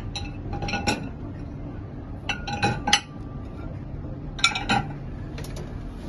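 Ceramic plates clinking against each other and the dishwasher's wire rack as they are loaded into the bottom rack, in four short clusters of clinks with brief ringing. A steady low hum runs underneath.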